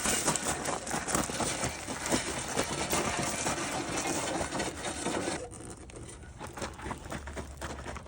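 Clattering and scraping noise from a heavy metal lathe being moved over the ground, a dense run of small knocks that stops about five and a half seconds in and gives way to a quieter rustle.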